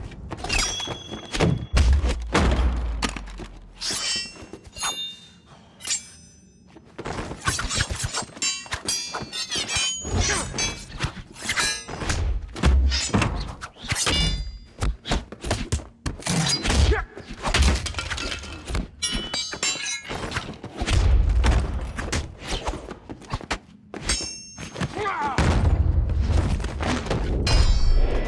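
Sword-fight sound effects from an action-film soundtrack: a rapid run of hits, thuds and short ringing metal clangs, with deep booms under several of the exchanges and a brief lull about five seconds in.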